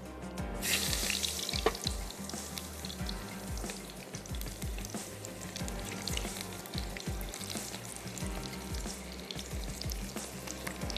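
Batter-coated chicken strips deep-frying in hot oil in a wok, a dense sizzle with fine crackles. The sizzle starts suddenly about half a second in, as a strip goes into the oil. Background music underneath.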